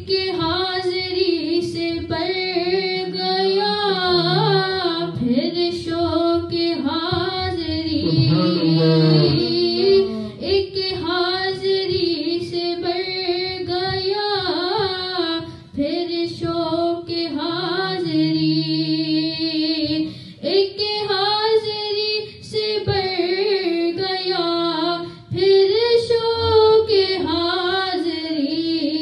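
A voice singing an Urdu devotional naat in long, ornamented lines that waver around held notes, with a few short breath pauses.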